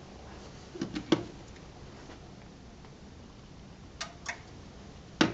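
Quiet room tone broken by short sharp clicks or knocks: two close together about a second in, two fainter ones about four seconds in.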